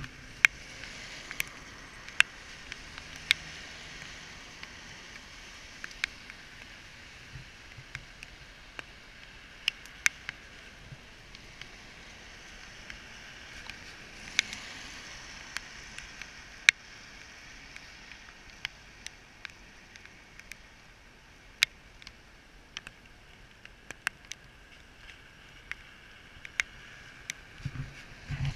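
Steady hiss of traffic tyres on a wet road, swelling as a car passes about halfway through. Scattered sharp clicks and taps close by at irregular intervals.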